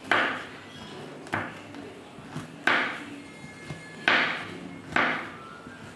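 Kitchen knife chopping a green gourd into chunks on a wooden cutting board. The blade goes through the flesh and knocks on the board five times, sharply, about once a second, with a few fainter taps in between.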